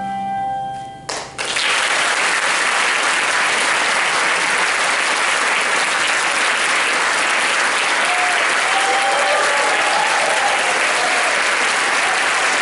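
A sustained handbell chord rings for about a second and is damped off sharply, ending the piece. Audience applause then breaks out and runs on steadily.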